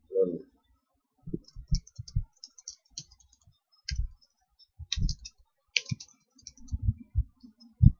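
Typing on a computer keyboard: irregular keystrokes in short uneven runs with pauses, each a dull knock with a sharp click on top.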